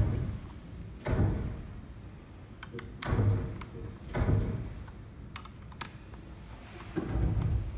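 Metal clunks and clatter from a barber chair's steel seat mounting plate and fittings being handled during assembly: about five irregular knocks, one to three seconds apart, with a few light clicks between.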